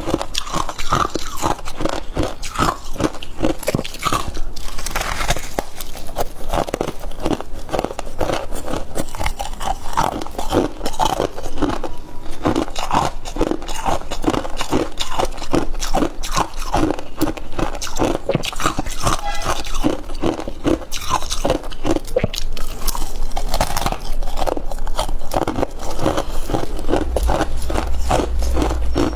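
Crunchy freezer frost being bitten and chewed in a rapid, continuous run of crunches.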